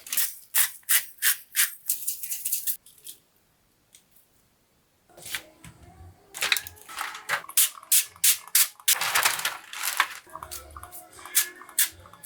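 A rapid series of short, sharp scraping or chopping strokes, about three a second, broken by a roughly two-second gap a few seconds in.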